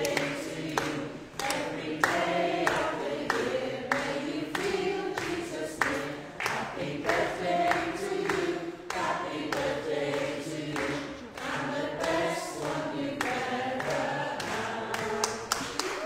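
Congregation singing a birthday song together in a church, clapping along in a steady beat.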